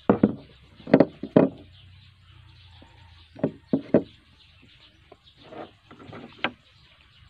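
Cut PVC pieces knocking and clacking against a wooden tabletop as they are picked up and handled, in a string of short, sharp knocks in loose groups of two or three.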